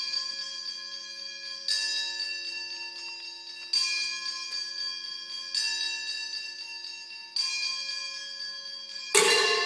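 Struck metal percussion ringing: a single stroke about every two seconds, five in all, each leaving a bell-like ring of several high tones that fades before the next. The last stroke, near the end, is louder and fuller, while lower tones keep ringing underneath.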